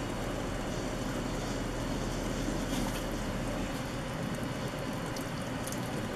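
A pot of fish broth simmering on a stove burner: a steady rushing noise with a low hum, with a few faint ticks near the end.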